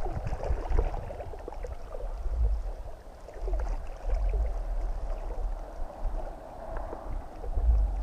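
Water lapping and splashing, with a gusty rumble of wind on the microphone.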